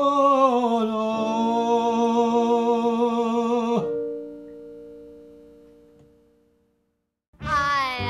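A man singing and holding the final note of an Italian song with vibrato, stepping down in pitch about a second in, over a sustained digital piano chord. The voice stops about four seconds in and the piano chord dies away to silence. Near the end, new music with singing begins.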